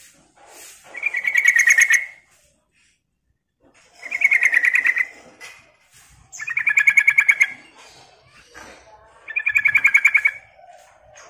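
Yellow-vented bulbul singing: four fast chattering phrases, each about a second long and a couple of seconds apart, with softer notes between them.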